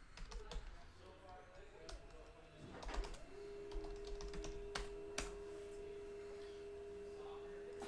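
Computer keyboard typing with scattered key clicks and taps. A few seconds in, a steady single-pitched tone starts and holds.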